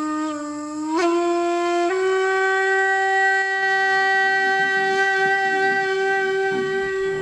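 Music played on a wind instrument: held notes that step up in pitch twice in the first two seconds, then settle on one long, steady note. A low rumble comes in underneath about halfway through.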